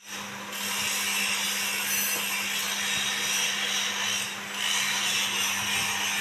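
Handheld angle grinder running steadily against metal, a harsh hiss over a steady motor hum, easing briefly about four seconds in.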